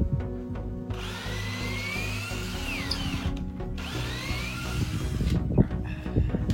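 Power drill running in two spurts, its motor whine rising and then falling in pitch, over background music.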